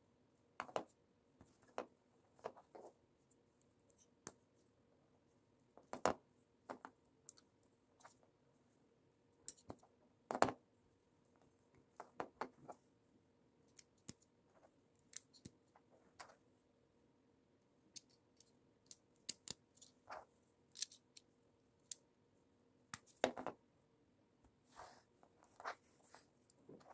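LEGO plastic bricks clicking and snapping as pieces are pressed onto a small model and handled: irregular sharp clicks and taps, the loudest about six seconds in, about ten seconds in and near the end, over a faint steady hum.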